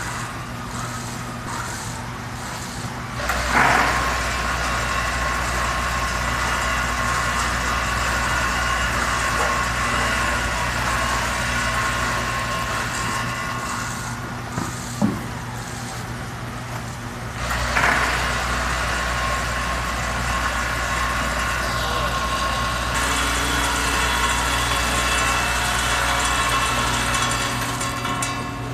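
Weigh Right G-50-HC direct-fill weighing scale filling roasted peanuts: its vibratory feeder pans hum steadily with several fixed tones as the peanuts trickle through. A low drone cuts in about three seconds in and again near eighteen seconds, each time with a short rush of pouring product, once per fill cycle.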